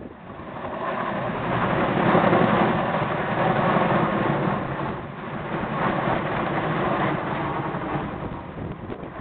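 Chinook tandem-rotor helicopter flying overhead with an underslung load, its rotors and turbine engines making a loud, steady noise that builds over the first two seconds and eases off a little toward the end.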